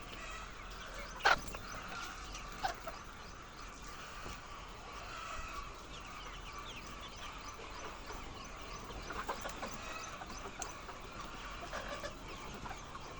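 A large flock of laying hens clucking and chattering all together, with one loud sharp squawk about a second in and a shorter one soon after.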